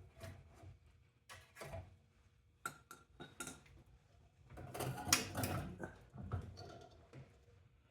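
Metal parts of a microwave oven clinking and rattling as it is taken apart by hand: scattered knocks and clicks, with a longer clatter about five seconds in.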